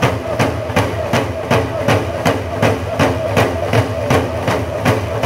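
Hand game drummers beating large frame hand drums in a steady driving beat, about three strokes a second, with men's voices chanting the hand game song over it.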